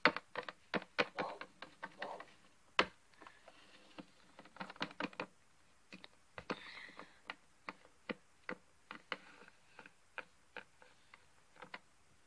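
Typing on a keyboard: quick, irregular key clicks, thickest in the first three seconds and sparser after.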